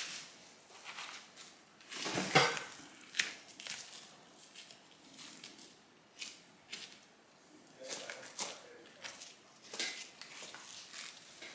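Irregular rustling and crackling, with short clicks and scrapes scattered throughout; the loudest cluster comes about two seconds in.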